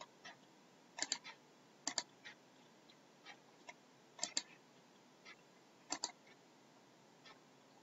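Computer mouse button clicking: four close double clicks, with softer single clicks between.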